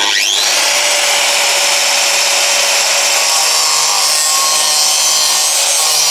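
Angle grinder cutting through steel with a cut-off disc: a loud, steady, hissing grind with a faint whine over it.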